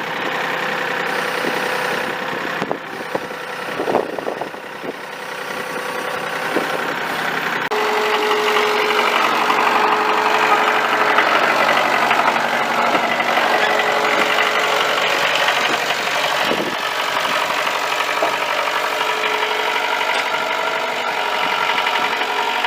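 Tractor engine running steadily, growing louder and fuller about eight seconds in as it is worked harder, with a few short knocks.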